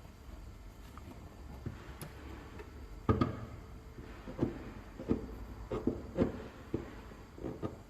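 A series of light, irregular knocks and clicks, about ten of them starting about three seconds in, like hard objects being handled.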